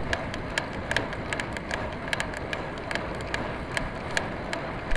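Road bicycle ridden hard, with a steady rush of wind and road noise on the microphone and irregular sharp clicks and rattles from the bike.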